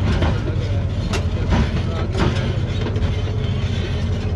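Caterpillar D9H crawler dozer's diesel engine working under load with a steady low drone while it rips rocky ground, with track clatter and a few sharp clanks and knocks.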